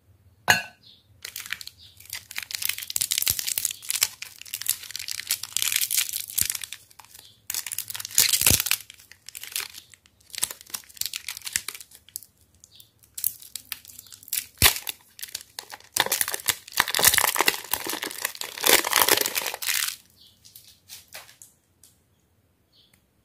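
A KitKat bar's plastic wrapper being crinkled and torn open by hand, in repeated crackling bursts with a few sharp snaps, stopping about 20 seconds in.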